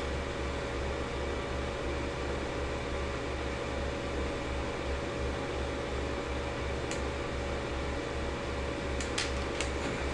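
Steady whir and hum of a running overhead projector's cooling fan, with a steady tone over it. A few faint clicks come about two-thirds through and again near the end.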